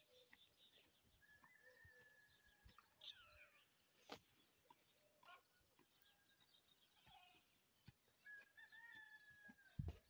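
Faint, distant rooster crowing twice, each a held call of about two seconds, with small birds chirping faintly and a few sharp knocks, the loudest near the end.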